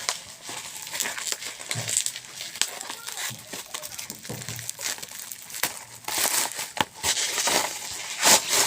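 Parcel packaging crinkling and tearing as it is unwrapped by hand, a dense crackly rustle that grows louder and busier in the last few seconds.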